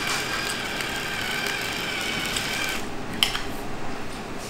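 Battery-powered electric salt grinder running, a steady small-motor whine that stops about three seconds in. A couple of light clicks follow.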